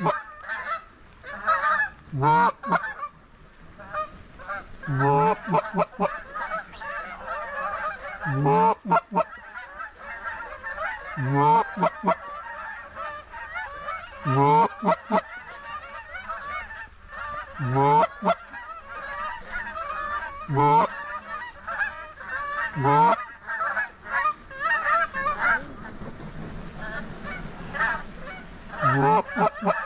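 Geese calling: loud two-note honks every two to three seconds over the constant yelping of a large flock of snow geese and Canada geese.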